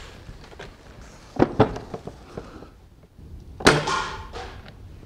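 Hammerli 550 break-barrel spring air rifle being cocked and loaded: a couple of sharp clicks, then a louder metallic clunk with a brief ring about three and a half seconds in as the barrel is snapped shut.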